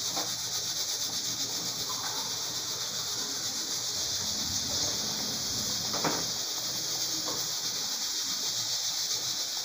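Steady hiss of steam from a stovetop pressure cooker cooking potatoes, with a couple of faint pops from the tomato sauce boiling.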